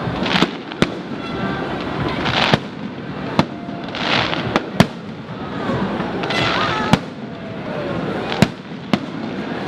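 Aerial fireworks display: about seven sharp bangs of shells bursting, the loudest near the middle, with short bursts of hissing crackle from the star effects between them.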